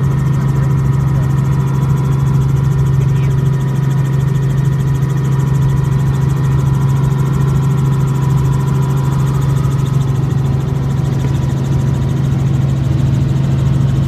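Helicopter engine and rotors running in flight, heard from inside the cabin: a loud, steady low drone with a fainter steady whine above it.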